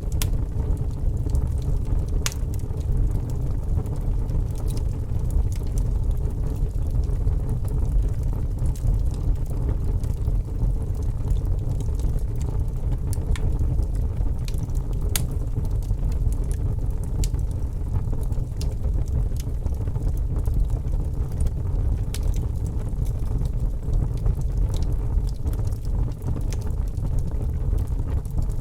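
Wood fire crackling in a fireplace, with scattered sharp pops a few seconds apart over a steady low rumble.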